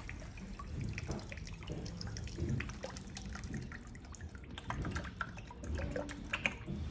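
Engine oil pouring from a quart bottle into a semi-transparent polyethylene pump tank: a faint stream of many small dripping ticks.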